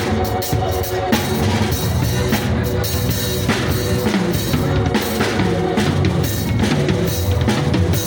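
Drum kit played in a continuous groove, with dense kick, snare and cymbal hits, and pitched notes sounding underneath.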